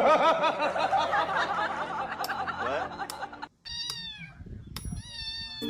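A dense stretch of rapid, repeated voice sounds lasts about three and a half seconds and stops abruptly. Then a cat meows twice: two short, high calls that fall in pitch.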